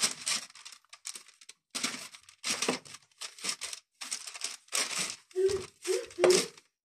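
Baking parchment rustling and crinkling in short, irregular bursts as hands press and tuck a braided yeast dough on a lined baking tray.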